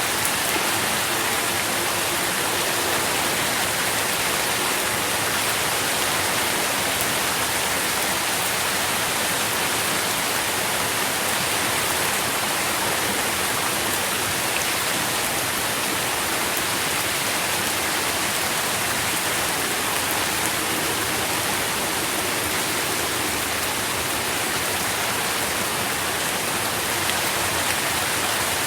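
Steady rain falling, an even dense hiss of drops without breaks or changes.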